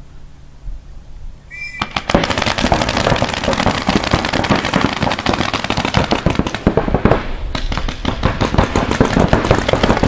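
A brief high tone about a second and a half in, then several paintball markers firing rapid strings of shots, a dense crackle of overlapping pops that thins briefly near three quarters of the way through.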